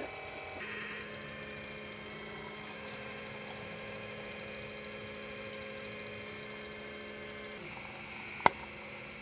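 Steady hum of a 1/12 scale RC hydraulic excavator's small electric pump running while the bucket works the soil, with one sharp click near the end.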